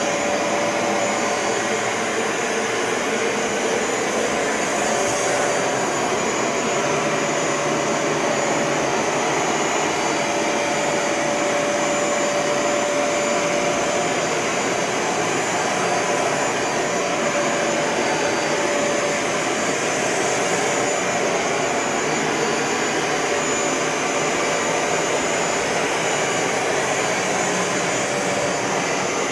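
Bissell ProHeat 2X Revolution Pet Pro upright carpet cleaner running steadily while cleaning carpet: an even suction-motor rush with a faint steady whine on top.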